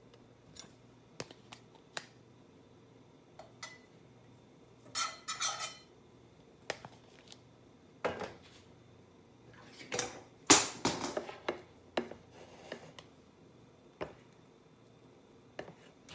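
Kitchen utensils and cookware being handled: scattered clicks and knocks, with two short flurries of clattering, the louder about ten seconds in.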